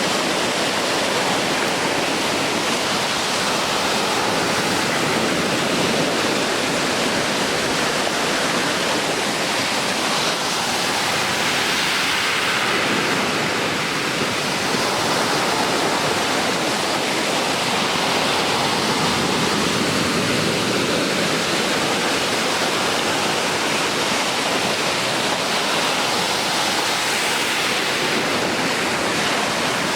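Ocean surf breaking in a continuous, even rush of noise, swelling slightly about halfway through.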